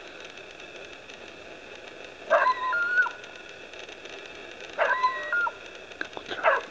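Dog giving two drawn-out, wavering yelping calls a couple of seconds apart, then a shorter, broken call near the end, over a steady hiss.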